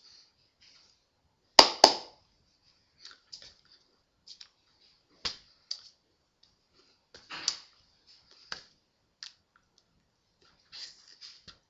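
Hands and mouth of a person signing: two sharp hand slaps close together near two seconds in, then scattered soft clicks and brushing of hands against clothing.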